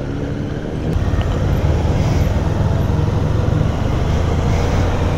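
Motorcycle engine running with road and wind noise while riding, heard from on the bike. The sound steps up in level about a second in and then holds steady.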